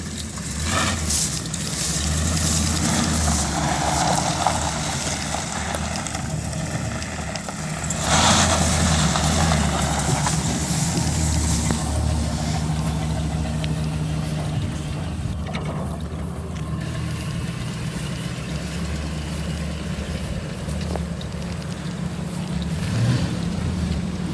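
The 6.0-litre gas V8 of a 2008 GMC Sierra 3500HD pickup running steadily as the truck drives slowly across grass, getting louder for a few seconds as it passes close by.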